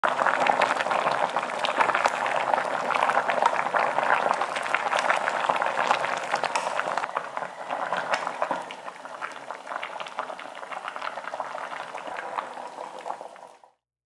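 A pot of gochujang stew with potatoes and zucchini boiling hard, its thick broth bubbling with many small pops. The bubbling is softer from about halfway and fades out near the end.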